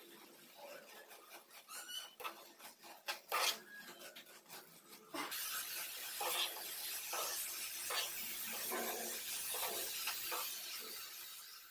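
A perforated steel spatula stirring and scraping grated carrot halwa around a nonstick pan, in repeated rasping strokes. It grows louder about five seconds in, with a steady hiss under the strokes.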